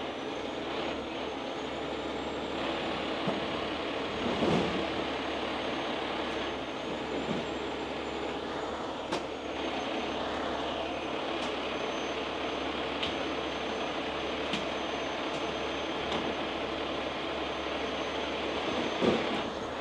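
Heavy tow trucks' diesel engines running steadily while the rotator and wrecker winch an overturned box truck upright, with a few faint clicks.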